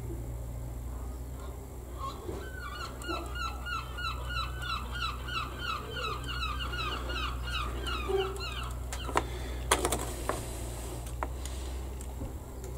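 A bird calling in a run of about twenty short, evenly repeated notes, about three a second, for several seconds. Near the end come a few sharp clicks and knocks of the hard plastic model parts being handled, over a steady low hum.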